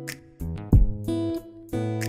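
Background music: strummed acoustic guitar chords with a low drum beat under them.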